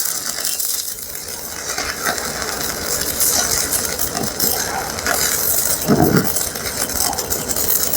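Stick welding arc from a 3/32-inch E6013 rod on a Sefaspe 135E inverter welder: a steady, dense crackle and hiss. The rod is burning smoothly, a sign that this machine runs 6013 without trouble.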